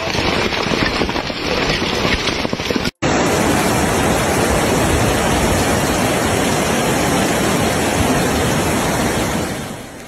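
Heavy rain pelting umbrellas and rocks, with many sharp taps. After a cut about three seconds in, a steady rushing of a flooded river and downpour, which fades near the end.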